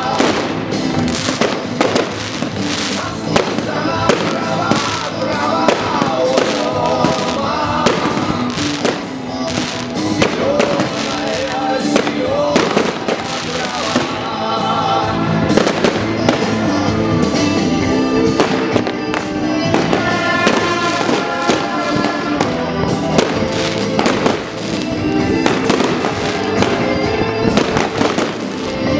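Fireworks display: many sharp bangs and crackles of firework shells bursting one after another, over loud music with singing.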